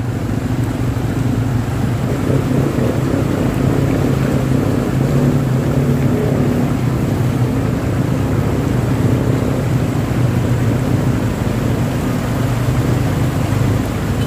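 Vehicle engines running steadily in slow traffic, over the swish and splash of water churned up as the vehicles wade through floodwater covering the road.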